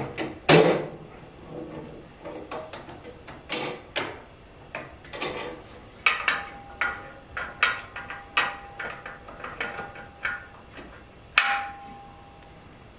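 Steel 3-point quick hitch and its pins being handled and fitted on a compact tractor's lift arms: irregular metal clanks and knocks, the loudest about half a second in. A faint steady tone lingers after some of the knocks.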